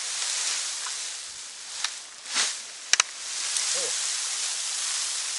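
Dry straw rustling as it is handled and packed down, with a few sharp clicks about halfway through.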